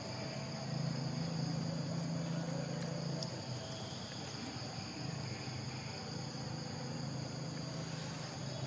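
Steady high-pitched insect chorus, like crickets, running throughout, with a low hum underneath that swells about a second in and again midway.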